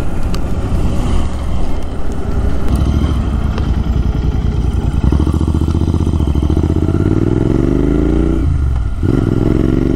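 Motorcycle engine running under load on the road. It rises in pitch as it accelerates, drops sharply at a gear change about eight and a half seconds in, then climbs again.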